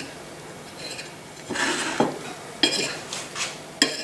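Table knife and fork cutting a baked chicken breast on a clay plate: a scrape of the blade through the meat about a second and a half in, then a few sharp clinks of metal on the plate.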